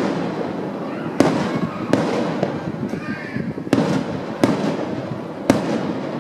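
Aerial firework shells bursting in the night sky: about six sharp bangs spaced roughly a second apart, each trailing off in an echo.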